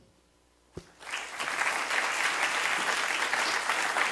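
Audience applauding, starting about a second in and holding steady; a single knock comes just before the clapping begins.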